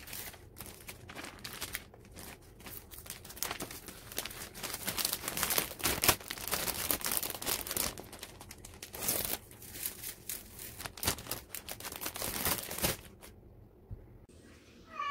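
Clear plastic bags crinkling irregularly as fabric cushions are handled inside them. The crinkling stops about thirteen seconds in.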